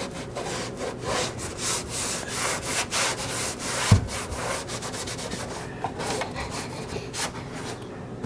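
Damp rag scrubbing grease and oven cleaner off a metal stove range hood in quick back-and-forth strokes, about two or three a second. There is a single thump about four seconds in.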